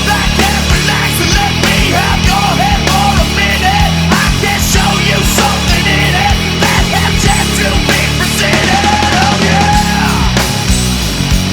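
Heavy rock music with a driving beat, distorted guitars and singing.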